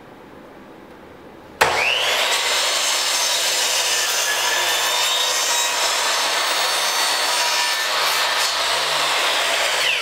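Porter-Cable compound miter saw starting up about a second and a half in, its whine rising as the blade spins up, then running steadily as the blade cuts through a pine board. Near the end the motor is released and its pitch begins to fall as the blade spins down.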